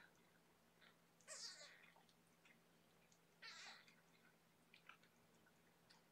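A cat mewing twice, faint short high calls about two seconds apart.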